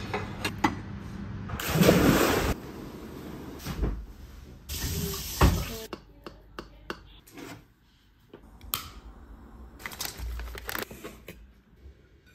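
Two bursts of running water, each about a second long, with scattered clicks and knocks around them.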